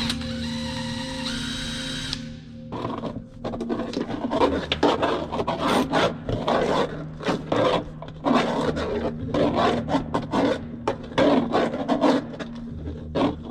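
Electric drill running on a rivet in the aluminium ladder bracket, stopping about two seconds in. It is followed by a long run of irregular scraping, rasping strokes of hand-tool work on the metal.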